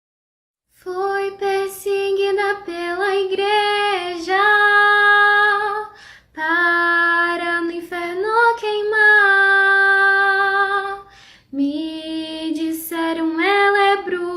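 A woman's voice singing the opening of an Umbanda ponto cantado, in three long phrases of held notes that slide from pitch to pitch.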